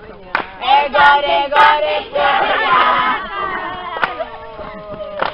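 A group of young voices singing and chanting together, with scattered hand claps.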